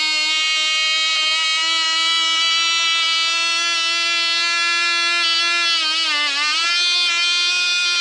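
Cox .049 two-stroke glow model engine running at high speed on 35% nitro fuel, a loud, high-pitched buzz. About six seconds in its pitch sags briefly and then comes back up.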